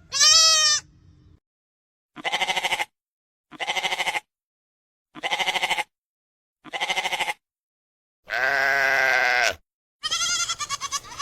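Goat bleats, seven in a row with silent gaps: a short bleat at the start, four shaky bleats of under a second each, a longer held bleat, and a last one that breaks up as it fades.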